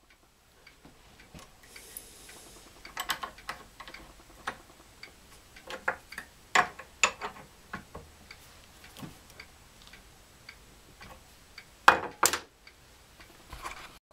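Scattered metallic clicks and knocks of a steel wire-bending jig being handled in a vise as the mandrel and bending arm are set up, with a sharp double knock about twelve seconds in.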